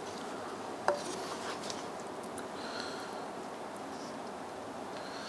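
A wooden spoon scraping and rubbing in a skillet as food is served onto a plate, with one sharp clink about a second in, over a steady faint hiss.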